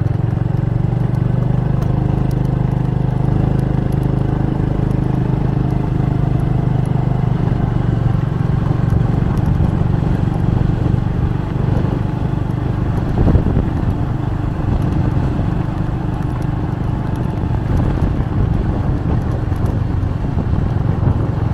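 Motorcycle engine running steadily while being ridden, with one short knock a little past halfway.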